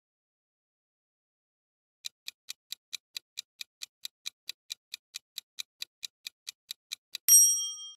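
Quiz countdown-timer sound effect: clock-like ticks, about five a second, starting about two seconds in, then a single bright bell ding near the end that rings on and is the loudest sound.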